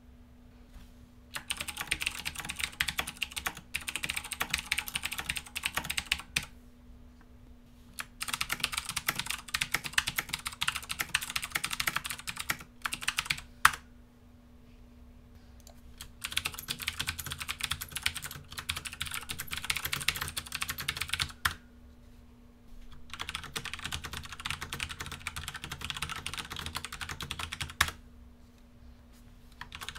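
Rosewill RK-9000 mechanical keyboards with Cherry MX switches being typed on fast, one keyboard after another: four spells of dense key clatter, each about five seconds long, with short pauses between them as the keyboards are swapped.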